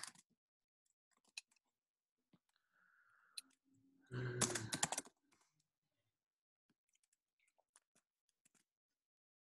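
Computer keyboard typing: scattered single keystrokes, with a quick, louder run of key clicks about four seconds in.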